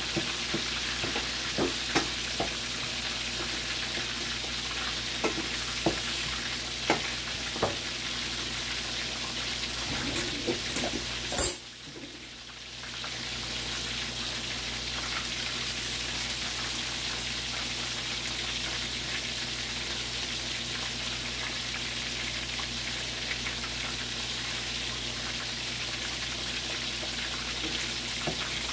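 Chicken leg quarters frying in hot oil to crisp the skin: a steady sizzle with scattered sharp pops and clicks. About halfway through, a louder click is followed by a brief drop in the sizzle, which then builds back up.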